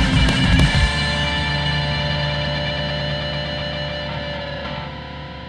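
Rock music with distorted electric guitar: the band plays its last rhythmic hits, then a final chord is held about a second in and rings out, slowly fading.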